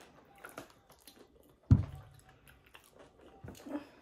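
Close-up chewing and eating sounds, faint and wet with small crunches, and one loud thump a little before halfway.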